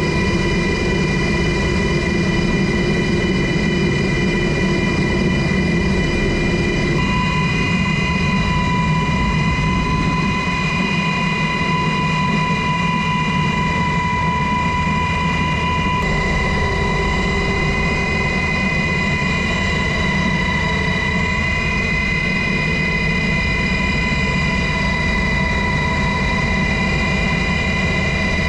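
HH-60G Pave Hawk helicopter heard from inside its open cabin: steady high turbine and transmission whine over heavy low rotor noise. The pitch of the whine shifts slightly a couple of times.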